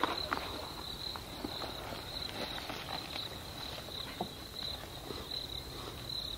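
Steady high-pitched chirring of insects in the bush, with scattered rustles and soft crunches of footsteps pushing through tall grass and brush.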